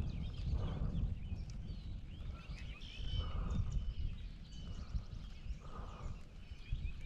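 Wind rumbling on the microphone, with several birds chirping and singing over it and a lower call coming three times.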